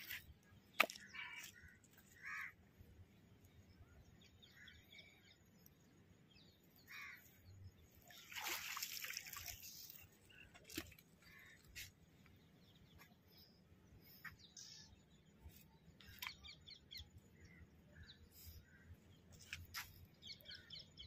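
Faint birds chirping now and then in quiet open air. About a second in there is a sharp click, and about eight seconds in a rustling scrape lasting about two seconds, the loudest sound here.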